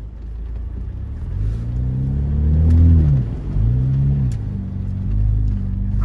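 Jeep engine under way on a dirt trail: the revs climb to a peak about three seconds in, drop, rise briefly again and then settle to a steady lower pull.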